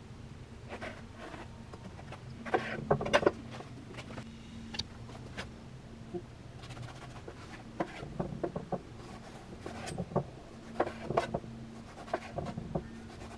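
Steady low electrical hum, with scattered light knocks, clicks and rubs of things being handled on a work surface; the handling is busiest about two and a half to three seconds in.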